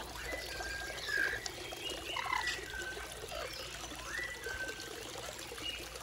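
Small stone garden fountain with water trickling and pouring steadily into its basin, with a few short bird chirps over it.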